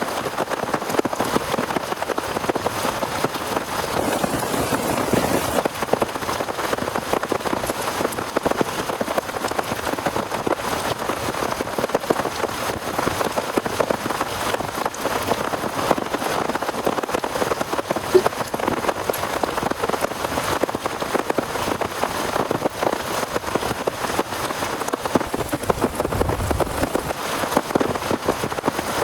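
Heavy rain falling steadily, a dense patter of drops hitting a surface.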